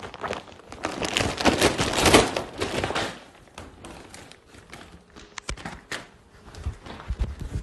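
Clear plastic bag crinkling loudly as it is pulled open and handled, for about the first three seconds, then quieter handling with a few sharp clicks.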